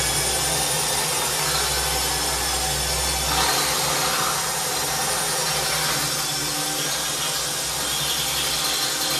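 Cordless drill running steadily, its small bit grinding into hard porcelain tile to start a hole.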